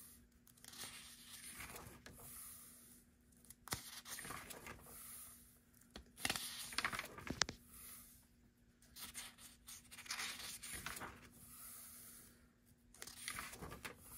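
Paper pages of a spiral-bound sketchbook being turned and smoothed flat by hand, a soft rustling swish every couple of seconds with a few light clicks.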